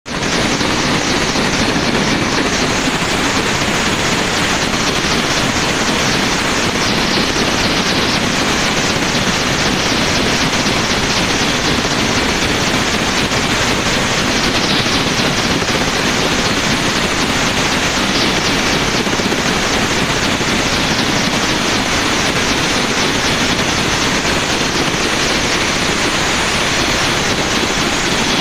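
Helicopter's engine and rotor running steadily and loudly, with a fast, even beat of the rotor blades.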